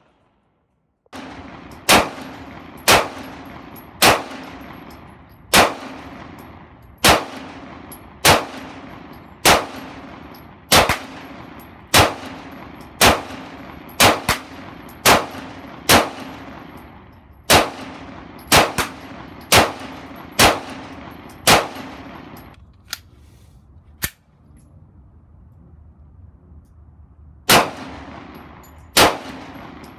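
9 mm service pistol fired slowly and steadily, about one shot a second, each shot followed by a ringing echo. The firing pauses for a few seconds with a couple of quieter knocks, then resumes near the end.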